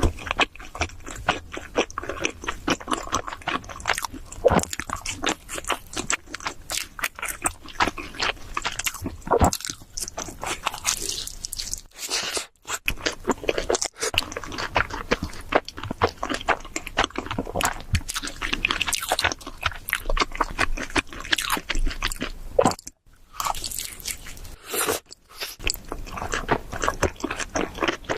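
Close-miked eating of cheese seafood pizza: steady biting, crunching and chewing, a dense run of crackly crunches that stops briefly twice.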